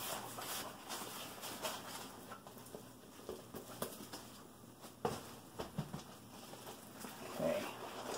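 Scattered rustling and soft knocks as a large diamond painting canvas is handled and rolled up backwards, with one sharper knock about five seconds in.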